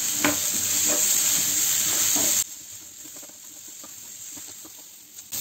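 Onions and bell peppers sizzling in a nonstick frying pan as they are stirred with a wooden spatula, with light scraping ticks. About halfway through the sizzle cuts off abruptly, leaving only faint scrapes.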